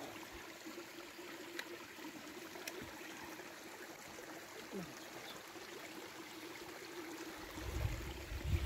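Faint, steady trickle of a mountain spring stream. Wind buffets the microphone near the end.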